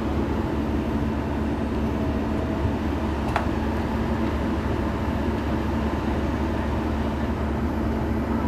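Heavy diesel machinery engine running steadily, a continuous low drone, with one brief sharp tick about a third of the way in.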